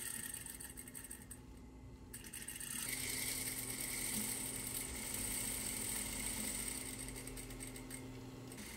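Juki industrial sewing machine: the sewing dies away in the first couple of seconds, then the machine's motor hums steadily at rest.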